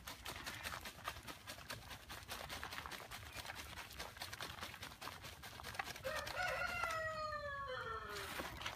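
Rapid rattling and scraping as compost is shaken back and forth on a hanging wooden-framed screen sifter. About six seconds in, a rooster crows once, a long call that falls in pitch and is the loudest sound.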